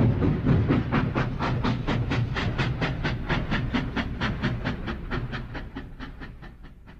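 Steam locomotive chuffing at a steady rhythm of about six puffs a second over a low rumble, fading away toward the end.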